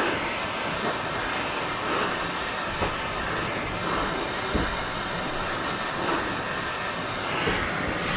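Small handheld butane torch burning with a steady hiss, heating heat-shrink tubing over a wire splice.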